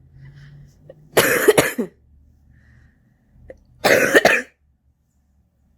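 Smoker's cough from cigarettes: two fits of coughing about three seconds apart, each a few coughs in quick succession.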